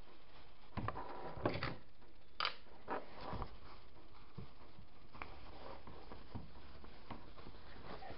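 Cloth and pins being handled while the cuff of a small lined cotton bag is pinned: soft rustles and a few light clicks and taps in the first few seconds, then only faint fiddling over a steady hiss.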